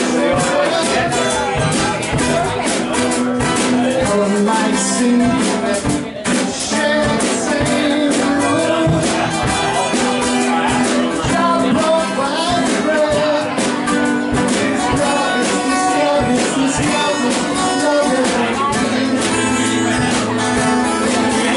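Live band music: acoustic guitar and drum kit playing steadily through an instrumental passage.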